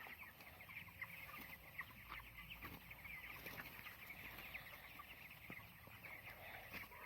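A flock of young broiler chickens calling together in their shed: a faint, dense chatter of many short, high calls overlapping without pause.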